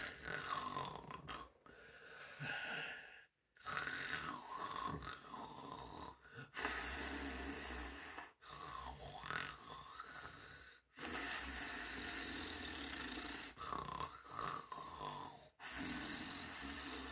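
A person snoring, with noisy rasping breaths and some wavering tones, in a run of separate stretches that each cut off abruptly.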